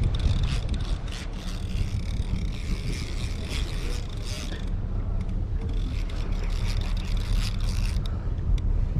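Steady low rumble of wind buffeting the microphone on an open boat at sea, with scattered faint ticks over it.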